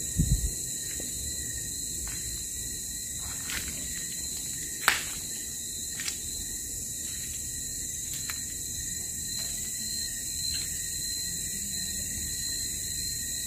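Night insects, crickets, trilling steadily in a high-pitched chorus. A low thump comes right at the start, and scattered clicks and taps follow, the sharpest about five seconds in.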